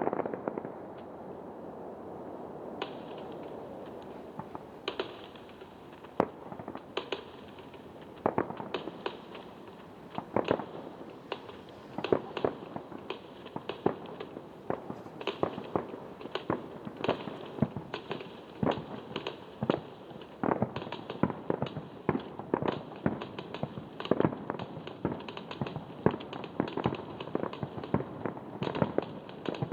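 Fireworks going off in a string of sharp bangs and cracks, a few at first, then many a second and growing denser.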